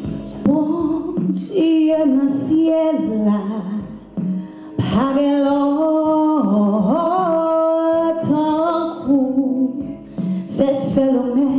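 A woman singing a Haitian Creole hymn over a backing accompaniment, her melody moving in long held notes that slide between pitches.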